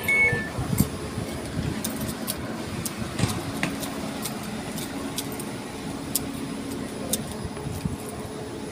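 Station platform beside a standing passenger train: a low steady hum from the train, footsteps and small clicks and jangles as passengers get off, with faint voices.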